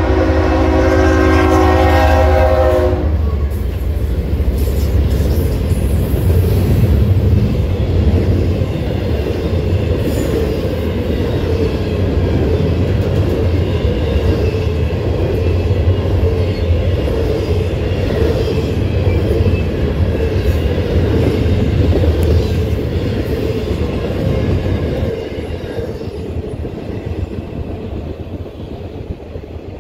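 Norfolk Southern freight locomotive horn sounding a multi-note chord, cutting off about three seconds in. Then the train rumbles and clatters steadily past, and the sound drops off about 25 seconds in as the last cars clear.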